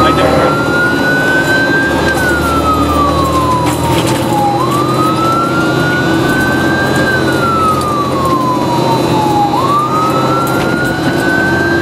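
Fire engine siren wailing, heard from inside the truck's cab: one tone that climbs for about two seconds and falls for about two and a half, a full cycle roughly every five seconds. Under it is the steady drone of the fire engine's own engine.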